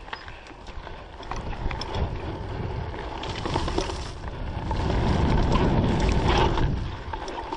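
Mountain bike rolling over a dirt trail: tyre rumble with rattling and clicking from the chain and frame over bumps, and wind buffeting the microphone, swelling loudest from about five to seven seconds in.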